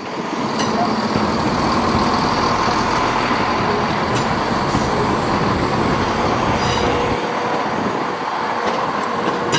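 Class 170 Turbostar diesel multiple unit passing over the level crossing at speed, a steady rush of wheel and rail noise with engine rumble. The low rumble eases about seven seconds in as it moves away.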